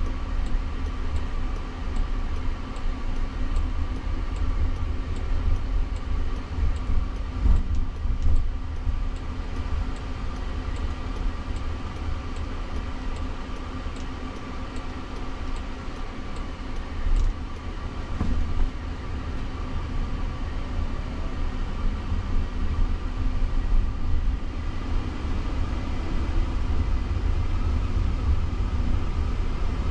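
Cabin noise inside a Jaguar I-Pace electric car on the move: a steady low rumble of road and tyre noise with a faint steady hum above it, and no engine note.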